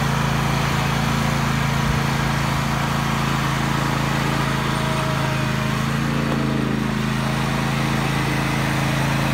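Zero-turn riding mower's engine running steadily at an even pitch.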